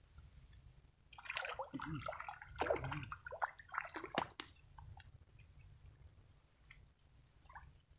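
A hooked fish thrashing and splashing in shallow swamp water as it is pulled up on a fishing pole, a run of irregular splashes from about a second in to about four seconds in.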